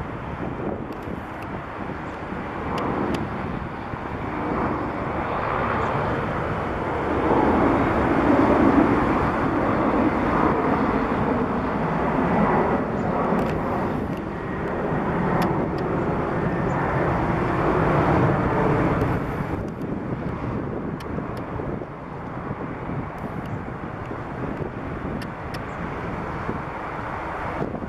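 Engines of a twin-engine Boeing jet airliner running as it moves past on the airfield. The roar builds, is loudest for about twelve seconds, then drops off sharply about twenty seconds in and carries on fainter.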